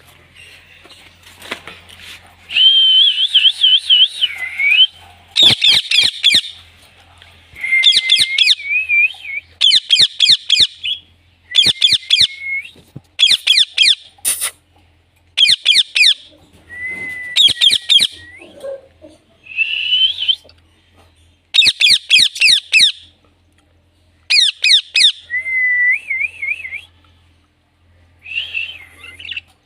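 Indian ringneck parakeet calling in repeated bouts of rapid, shrill chirps and whistled notes, each bout a second or two long with short pauses between.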